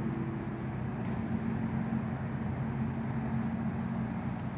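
A motor-vehicle engine idling, a low steady hum.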